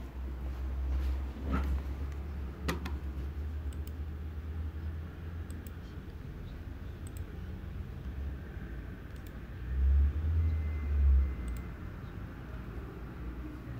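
Low rumbling handling noise from a handheld phone's microphone being moved around, with a few soft clicks; the rumble swells louder for about a second and a half around ten seconds in.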